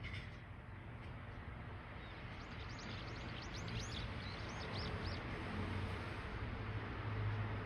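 Small birds chirping: a quick series of short high chirps in the middle, over a steady low hum and background hiss.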